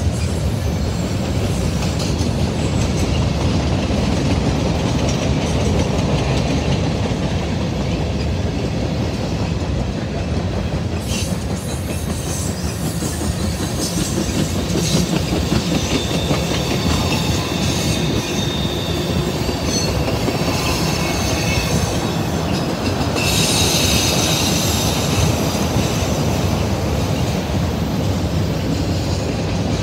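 Freight cars of a CSX manifest train, flatcars and tank cars, rolling steadily past with a constant rumble of wheels on rail. High-pitched wheel squeal comes and goes over the rumble and is loudest about three-quarters of the way through.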